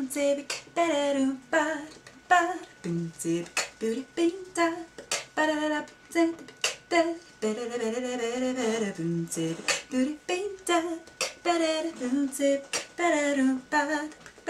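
A woman's voice singing a wordless, tune-like line of short sliding notes, with one long wavering held note about halfway through. Sharp percussive mouth clicks and pops are beatboxed in between the notes.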